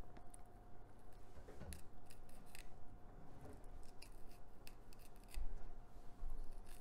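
Small knife working along a raw trout's rib bones, giving irregular sharp little clicks as the blade catches and snips through the ribs.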